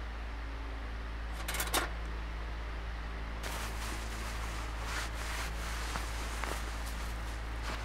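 A steady low mechanical hum of room air, with a short sharp rustle or knock about a second and a half in. From about three and a half seconds in, cloth rustles as heavy garments are handled and pulled on.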